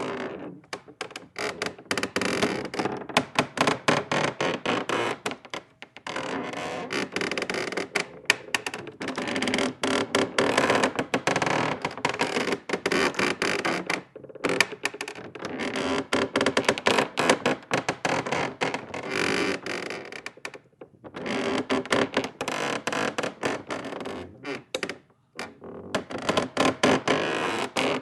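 Wood creaking under strain: long, crackling creaks made of many quick ticks, coming in four or five runs of several seconds each with brief pauses between them.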